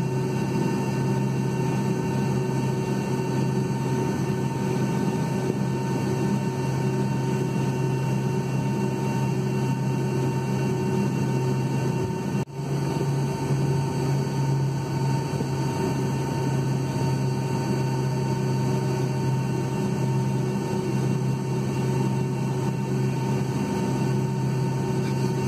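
Cabin noise inside a Boeing 757-200 taxiing, its jet engines at idle: a steady low drone with a fainter steady whine above it. There is a brief drop in the sound about halfway through.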